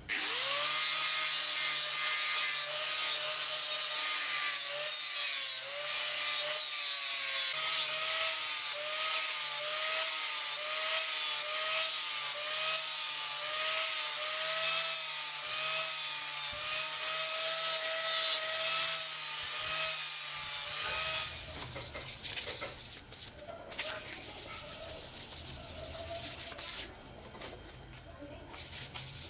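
Angle grinder with a flap disc spinning up and grinding paint off the sheet-metal housing of a bench grinder, its motor whine over a hiss of abrasion and dipping in pitch again and again as the disc is pressed into the metal. The grinder stops about two-thirds of the way through, followed by quieter rubbing and handling on the bared metal.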